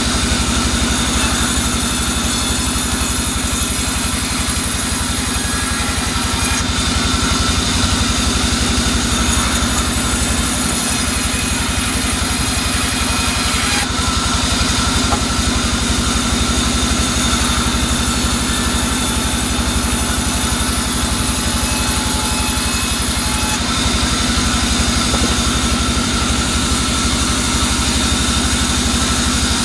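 Vertical band sawmill running steadily while its blade saws through soft albasia (sengon) logs. A high hiss rises with each cut and stops sharply between passes, several times over.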